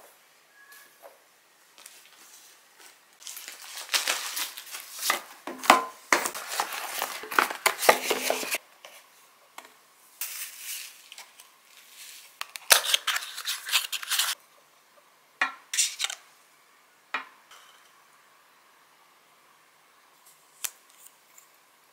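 Pink plastic bubble-mailer envelope crinkling and rustling in bursts as it is opened and handled. After that come a few separate small clicks as lipsticks are picked up and uncapped.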